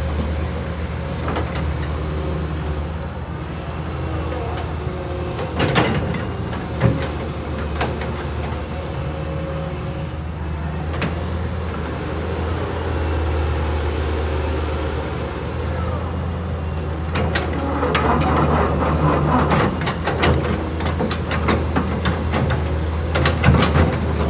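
Diesel engine of a 1998 Caterpillar 320BL excavator running steadily, with a few sharp knocks. From about two-thirds of the way in, clattering and frequent knocks rise over the engine.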